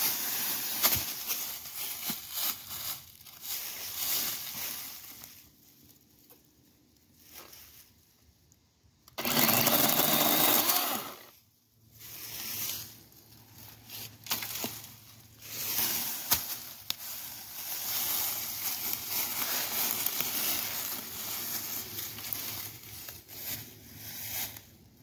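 Dry fallen leaves rustling and crunching as branches are dragged and sticks gathered through deep leaf litter, in uneven stretches with short quiet gaps. A much louder rushing noise comes about nine seconds in and lasts a couple of seconds.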